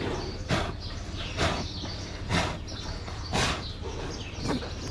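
Holstein dairy cow lying down, breathing heavily with a noisy breath about once a second over a steady low rumble. The laboured breathing is a sign of hypocalcaemia (milk fever), which the vet says ends with the cow no longer able to breathe.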